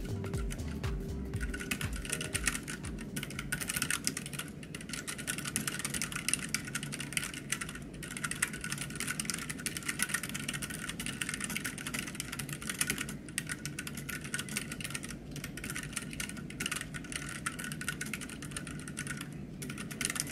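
Continuous fast typing on a Keychron K3 low-profile mechanical keyboard with white 30-gram switches: a dense run of key clicks with a few brief pauses.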